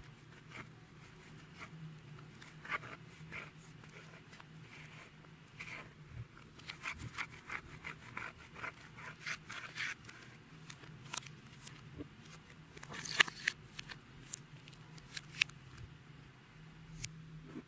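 Clear slime being squeezed and stretched by hand: irregular runs of small sticky clicks and crackling pops, thickest in the middle and again just past two-thirds of the way through.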